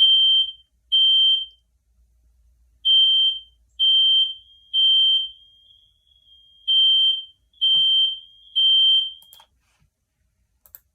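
Smoke detector sounding its alarm: high-pitched beeps in groups of three, about a second apart, with a pause between groups, the temporal-three evacuation signal. It stops shortly before the end.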